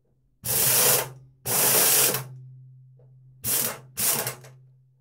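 Impact wrench hammering in four bursts, two longer ones followed by two short ones, breaking loose and backing out the anode rod on top of a water heater tank.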